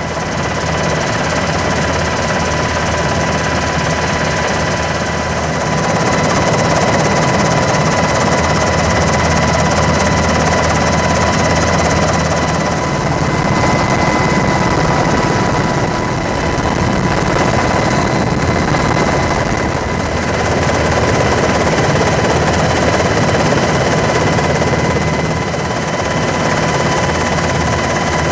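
Helicopter in flight: steady rotor and turbine noise with a constant high whine, swelling slightly in level now and then.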